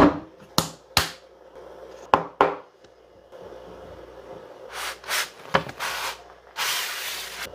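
A Savage Axis bolt-action rifle being handled on a wooden floor: five sharp clicks and knocks in the first two and a half seconds, then a few brief brushing swishes and about a second of steady rustling near the end.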